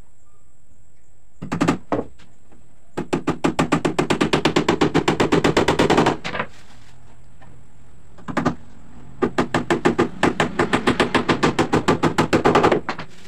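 A power driver driving screws into plywood: two runs of rapid, even clicking impacts of about three and a half seconds each, each led by a brief short burst as the screw starts.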